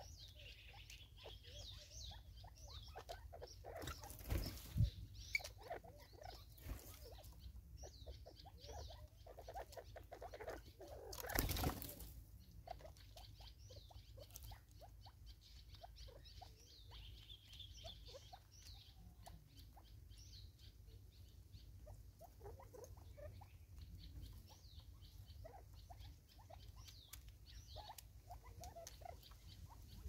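Natal spurfowl pecking at seed on a wooden stump: a quiet, irregular patter of small pecks and clicks, with two louder rustles about four and eleven seconds in.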